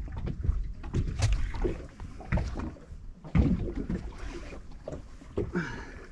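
Water slapping against a small boat's hull, over a low uneven rumble, with scattered knocks and clatters from the deck and fishing gear.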